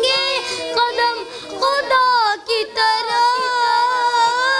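Two children singing a naat, drawing out long, wavering melodic notes, with a short break in the voice about two and a half seconds in.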